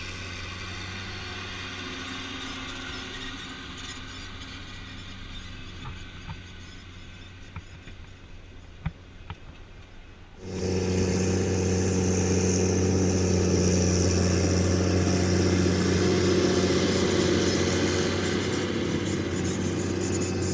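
Caterpillar Challenger MT765 tracked tractor's 8.8-litre C9 turbocharged inline-six diesel running steadily. About halfway through, it suddenly becomes much louder and fuller, with a strong hiss over the drone.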